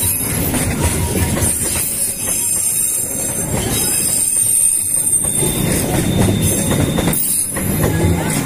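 Argo Parahyangan passenger coaches rolling past on a curve: steady rumble of steel wheels on the rails, with high-pitched wheel squeal coming and going.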